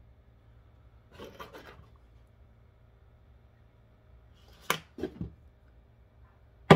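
Claw hammer tapping a small metal pin into a 3D-printed plastic key fob on a tabletop. There is a soft rustle of handling about a second in, then three quick sharp knocks and a louder single knock near the end.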